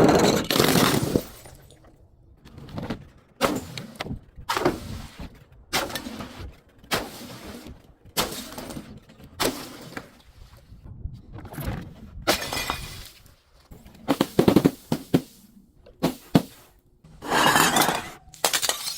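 Glass breaking and being crushed: a string of irregular crunches and shattering clicks. The longest, loudest crunches come at the start and again near the end.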